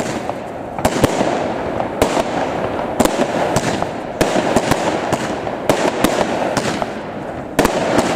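Fireworks display: aerial shells bursting in a string of sharp bangs, roughly one a second and sometimes two close together, over a steady dense din.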